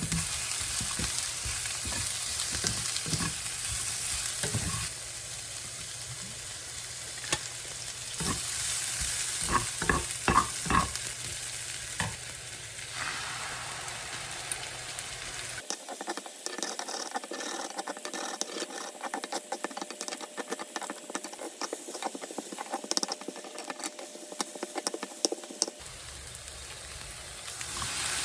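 Food sizzling in a frying pan while being stirred, with frequent clicks and scrapes of a utensil against the pan. The sound changes abruptly a few times.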